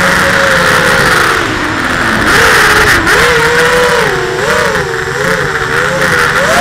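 Brushless motors and propellers of a 210-size FPV racing quadcopter, heard through its onboard camera. The whine's pitch falls a couple of seconds in, then dips and rises repeatedly with the throttle, over a steady hiss.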